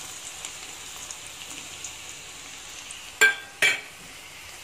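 Chopped onions and garlic sizzling in hot coconut oil in a kadai, just added, a crackling hiss that slowly dies down. Two loud metallic clanks come a little after three seconds in.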